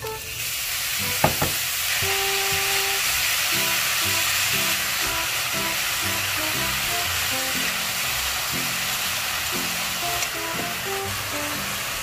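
Thin-sliced bulgogi beef sizzling steadily in a hot, dry pan with no oil as it is stirred with a spatula. There is a sharp knock a little over a second in.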